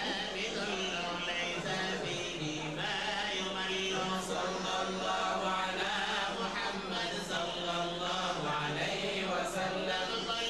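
Islamic devotional chanting by voices, the melody moving on long held notes that dip lower a few times.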